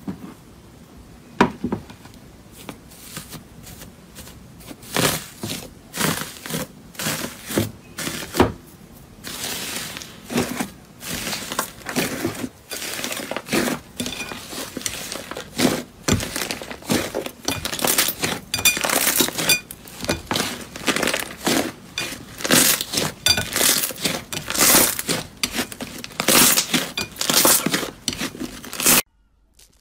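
Slime covered in metallic foil leaf being pressed and kneaded in a glass bowl: the foil crinkles and the slime gives many sharp crackles and pops. The crackles come thicker and louder after the first several seconds, then stop abruptly near the end.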